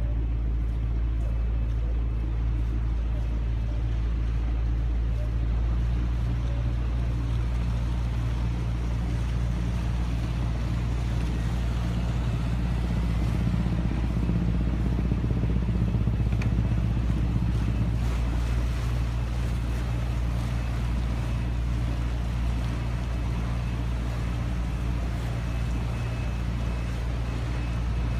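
A sailing yacht's auxiliary engine running steadily as the boat motors along: a low, even hum that swells slightly about halfway through, with water noise along the hull.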